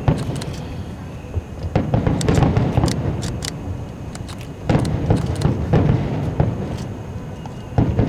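Aerial fireworks shells bursting: four deep booms about every three seconds, each trailing off in a long rumble with sharp crackling over it.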